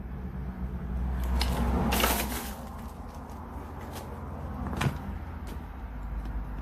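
A few knocks and scrapes from someone moving through a derelict building, the loudest about two seconds in and another sharp one near five seconds, over a low steady rumble.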